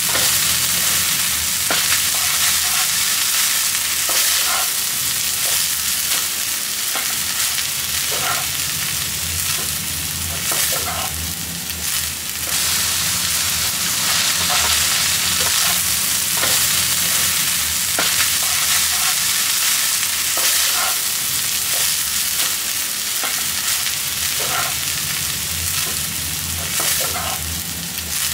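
Chicken fried rice sizzling in a frying pan as a wooden spatula stirs and tosses it, with frequent short clicks and scrapes of the spatula against the pan over a steady frying hiss.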